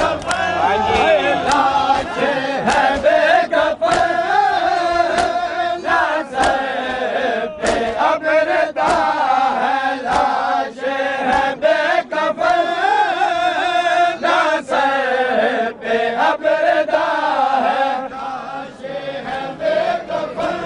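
A crowd of men chanting a mourning chant in unison, with the sharp slaps of hands beating on bare chests (matam) cutting through it irregularly.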